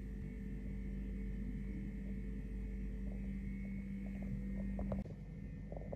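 Steady low hum that cuts off abruptly about five seconds in, with a few faint small ticks of handling before it.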